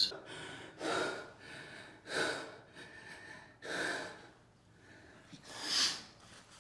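A man breathing hard: four heavy breaths, one every second and a half to two seconds, the last the loudest.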